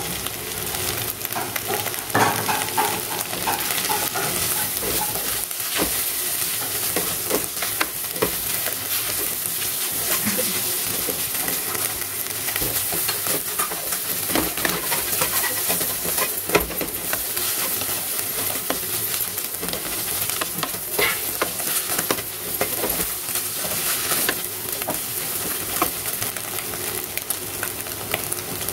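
Mashed potato, fried onion and sweet corn sizzling steadily in hot oil in a karai, while a wooden spatula stirs and scrapes through it with many short clicks and scrapes.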